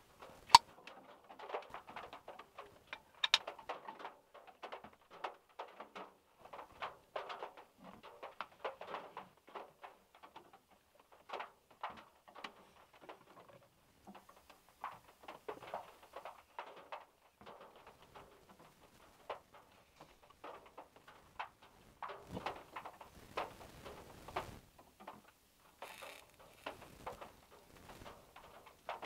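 Irregular drops of rain tapping on a car's metal roof, scattered single ticks with short lulls between, and a denser spell of drops in the last few seconds.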